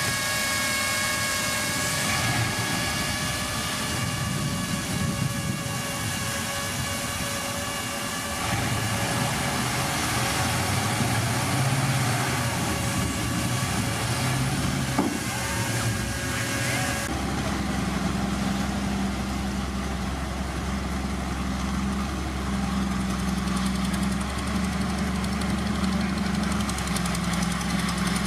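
Heavy diesel earthmoving machinery running, with a steady high whine over the engine. About two-thirds of the way through, the sound changes abruptly to a lower, steadier engine drone.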